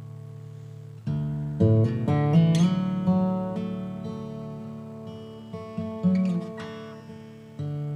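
Background music: acoustic guitar, plucked and strummed, with clusters of notes about a second in, again around six seconds, and a fresh strum near the end.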